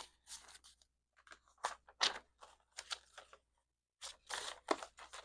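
Paper banknotes being handled and leafed through: a string of short, crisp rustles and flicks, with a brief pause about a second in and another about four seconds in.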